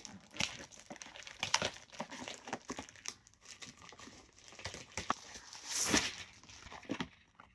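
Plastic mailer bag crinkling and rustling in sharp, irregular crackles as it is opened and a boxed spool of 3D printer filament is pulled out, with the loudest, longest rustle about six seconds in.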